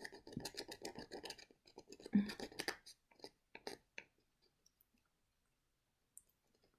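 Rapid scratching at the scratch-off strip on a plastic gift card, quick dense strokes for about three seconds, then a few separate scrapes before it stops.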